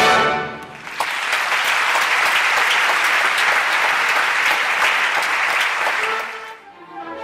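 Theatre audience applauding a ballet number: dense, steady clapping that follows the orchestra's final fading note and stops abruptly near the end, where orchestral music starts again.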